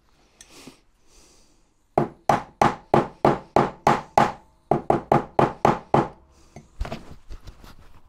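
Soft-faced mallet tapping on an aluminium tank drive sprocket, knocking the toothed sprocket ring down onto its hub. About a dozen quick blows, roughly three a second, in two runs, each with a short metallic ring, then two lighter taps.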